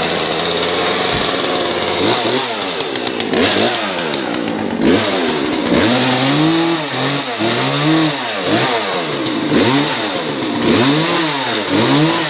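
Chainsaw running steadily, then about two seconds in its pitch starts rising and falling over and over, roughly once a second, as the motor speeds up and drops back.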